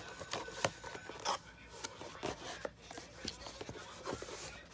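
Cardboard packaging rustling and scraping as a hand works a radio out of its box, with scattered light clicks and knocks.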